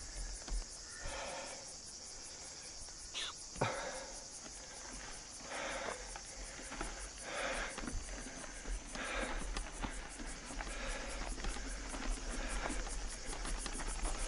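Insects chirring steadily in a high, fast-pulsed trill.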